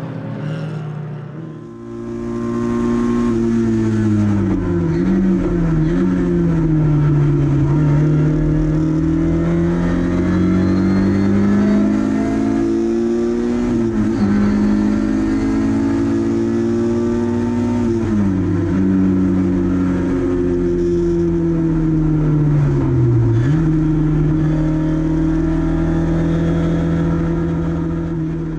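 Lada 2102 race car's engine heard from inside the car at racing speed, its note climbing and falling with the throttle and dropping sharply several times at gear changes and braking. The first second or so is the race cars heard from trackside.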